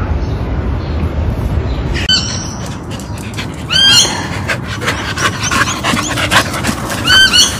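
A dog whining in short high-pitched cries, one at about two seconds, one near four seconds and a pair near the end, with quick panting between them.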